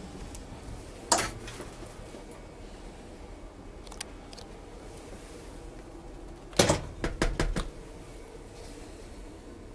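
Steady low hum inside a passenger train carriage, broken by a sharp knock about a second in, a single click near four seconds, and a loud knock followed by a quick run of clicks and knocks around seven seconds.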